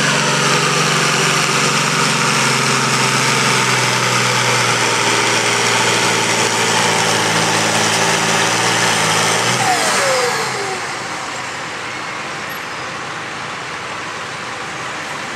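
Pulling tractor's engine running hard at a steady, high pitch under load. About ten seconds in it is throttled back, its pitch sliding down as the pull ends, and it settles into a quieter, steady rumble.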